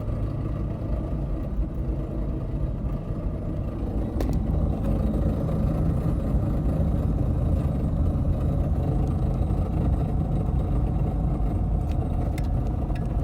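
A 2000 Jeep Grand Cherokee with the 4.7 V8 driving, with a steady low rumble. About four seconds in it gets a little louder and a thin steady whine joins the rumble. This is the unexplained noise while driving that the owner is asking about.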